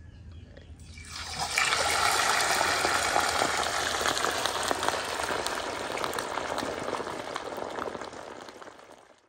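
Whole boiled, dried pork leg going into a pan of hot cooking oil for its first deep fry. The oil sizzles up loudly about a second in, then slowly dies down.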